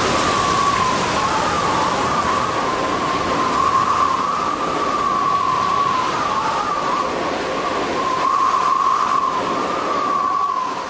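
Howling wind: a steady rushing roar with a high, wavering whistle that rises and falls a little every second or so, starting to fade near the end.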